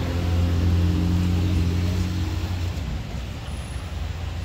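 A motor vehicle's engine running with a steady low hum, loudest for the first couple of seconds and then fading away by about three seconds in.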